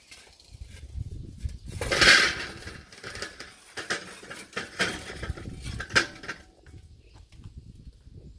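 Lit charcoal briquettes tipped from a chimney starter onto the steel charcoal grate of a kettle grill. There is a loud rattling clatter about two seconds in, then several smaller clinks and knocks as the last briquettes drop out.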